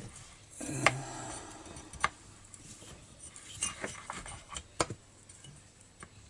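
Metal hand tool and chainsaw clutch parts clinking together as the clutch and sprocket are fitted back on: a handful of sharp metal clicks about a second apart.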